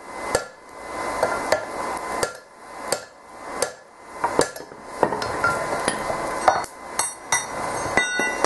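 Hand hammer striking a steel drift driven through the eye of a red-hot sledgehammer head on an anvil, opening out the eye, about one sharp metallic blow every 0.7 seconds. After about four seconds the blows come faster and less evenly, with a steady metallic ringing between them.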